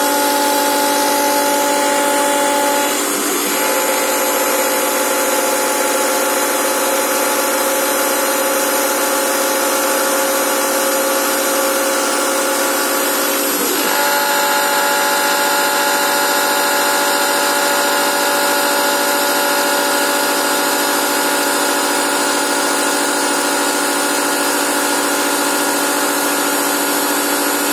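Small CNC milling machine chamfering an aluminium block with a chamfer bit: a steady spindle and motor whine over the cutting noise and a steady hiss from the mist-coolant nozzle. The whine's pitch shifts twice, about 3 and 14 seconds in.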